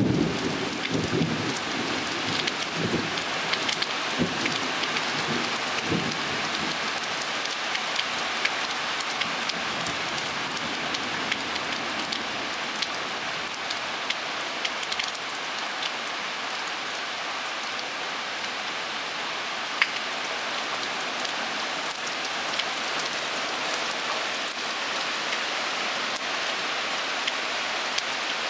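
Heavy thunderstorm rain pouring steadily, with the low rumble of thunder dying away over the first few seconds. Sharp drop ticks land now and then close by, one louder about twenty seconds in.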